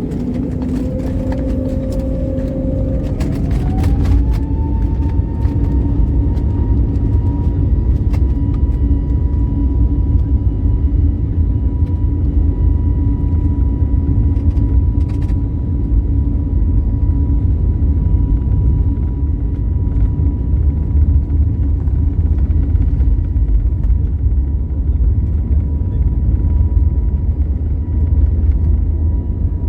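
Airliner engines heard from inside the cabin, spooling up to takeoff thrust: a whine rises in pitch a few seconds in, then holds steady over a loud, steady rumble as the aircraft rolls and climbs out.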